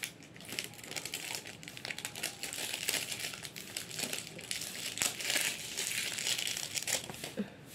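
Packaging crinkling and crackling as a small cardboard cosmetics box and its wrapping are handled and opened by hand, a busy run of quick fine crackles.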